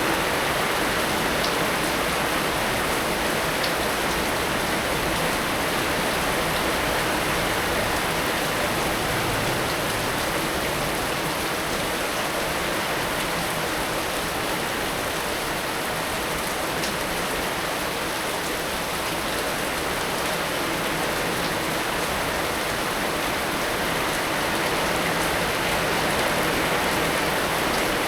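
Heavy rain falling steadily, a constant even hiss with the odd single drop standing out.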